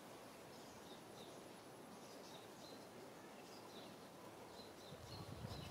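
Near silence: faint outdoor ambience with small birds chirping again and again, short high chirps, and a low rumble coming in near the end.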